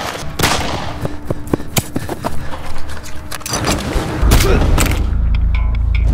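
A rapid volley of dubbed-in gunfire sound effects, many sharp shots in quick succession. About two-thirds of the way through, a deep steady bass drone of film music comes in and the shots die away.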